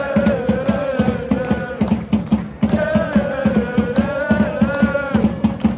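Football supporters in the stand singing a chant together in two long phrases, with a short break about two and a half seconds in, over a steady beat.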